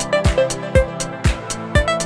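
Upbeat electronic background music with a steady drum beat of about two beats a second and a melody of short notes.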